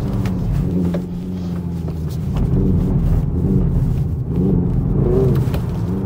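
Hyundai IONIQ 5 N electric car's synthesized combustion-engine sound rising and falling in pitch as the driver works the throttle.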